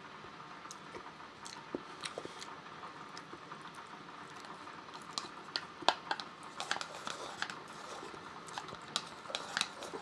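A person eating rice in beef-and-egg sauce from a bowl with chopsticks. Faint chewing with small scattered clicks and smacks, which come thicker in the second half.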